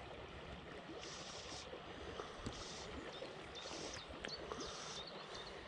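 Faint, steady flow of a small river around a wading angler's legs, with a few soft clicks.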